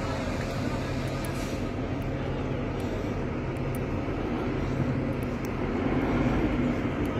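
Kalka–Shimla toy train's diesel engine running with a steady low drone, swelling slightly near the end.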